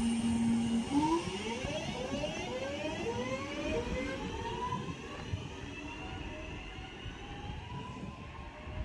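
Class 323 electric multiple unit pulling away and accelerating. Its traction motors give a series of whines, each rising in pitch and then dropping back to start climbing again, several times over. The whines grow more drawn out and a little fainter as the train draws away.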